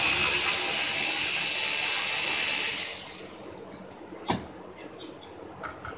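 A ratchet turning a bolt at the bottom of a car's A/C condenser and transmission cooler through a long extension, making a steady, high-pitched rattle for about three seconds that then fades. A little after four seconds there is a single sharp click.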